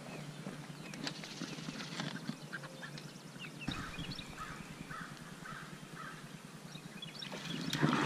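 Waterfowl calling in a short run of honks or quacks. Near the end, water splashing as a hooked fish thrashes at the surface.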